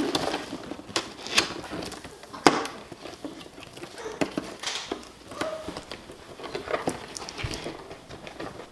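A toy box being opened and plastic toy pieces handled: scattered clicks, taps and short rustles of cardboard and plastic.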